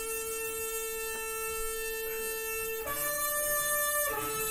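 A horn blown in long held notes: one steady note, a jump to a higher note about three seconds in, then back down to the first note near the end.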